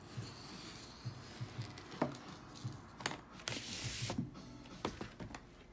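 A vinyl record's cardboard gatefold jacket being opened and handled: paper rustling with scattered taps and clicks, and a louder rustle about three and a half seconds in. Faint music plays underneath.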